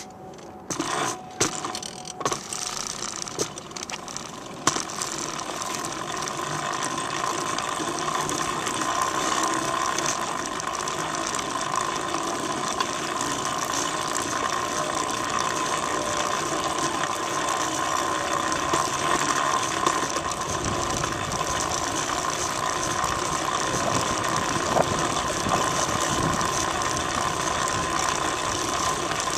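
Recumbent bicycle's chain and drivetrain whirring steadily as the bike rolls along pavement, with a few clicks and knocks in the first few seconds as it gets going. The whir grows louder over the first several seconds, then holds steady.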